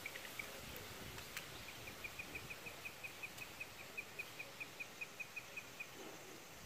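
A small animal calling: a fast, regular run of short, high chirps, about five a second, lasting about four seconds, after a few scattered chirps at the start.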